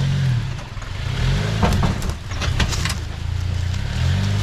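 Off-road 4x4's engine pulling at low speed, its pitch dipping and rising with the throttle. About a second and a half in there is a quick run of knocks and clatter.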